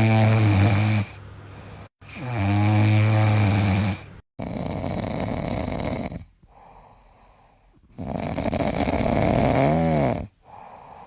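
Sleeping dogs snoring: loud, buzzing inhaled snores about two seconds long, each followed by a softer, quieter breath, repeated four times. A short break about two seconds in and another about four seconds in cut the sound off sharply.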